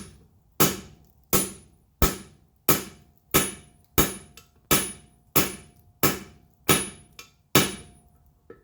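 Blacksmith's hammer striking hot wrought iron on an anvil in an even rhythm, about one and a half blows a second, each blow with a short metallic ring. There are about a dozen blows, then a light tap near the end before the hammering stops.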